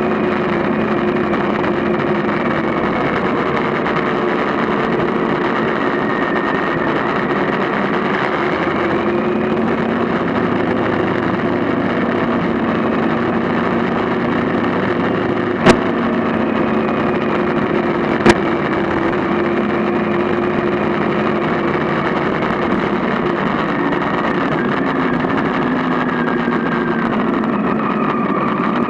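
A vehicle's engine running steadily while driving along a rough dirt track, its pitch rising and falling a little with the throttle. Two sharp clicks about two and a half seconds apart come near the middle.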